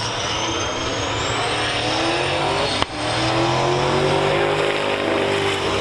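Drag-race car engine running loud, its pitch climbing slowly, with a thin high whine above it. The sound breaks off abruptly for an instant about three seconds in, then carries on.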